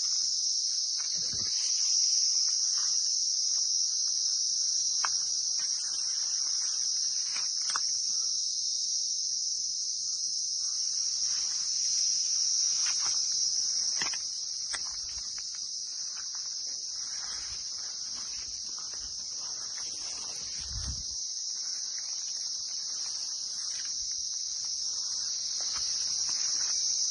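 A steady, high-pitched insect chorus, unbroken and constant, of the kind made by crickets. Faint rustles and small taps sound over it, and it drops a little in level about halfway through.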